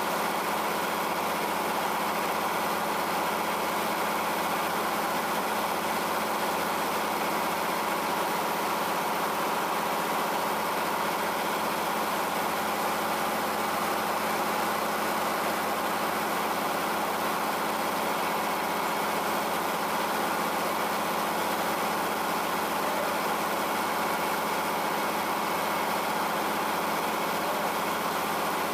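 The power-unit engine of a Frick 00 circular sawmill running steadily at a constant speed, with the saw out of the cut.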